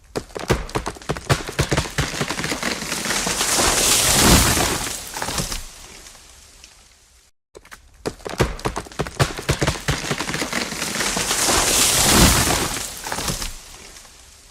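A cut tree falling: a run of sharp cracks as the trunk splits, building to a loud crash and rush through the branches, then dying away with scattered cracks. The same fall comes twice, with a brief gap between.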